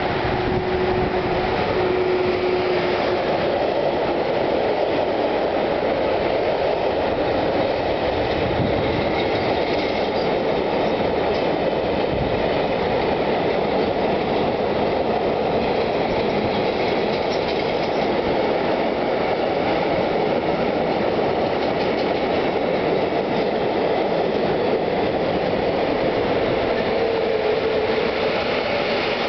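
Long freight train of covered boxcars rolling past: a steady, continuous rumble of steel wheels on the rails, with some clickety-clack over the joints. A thin steady hum sits under it for the first few seconds.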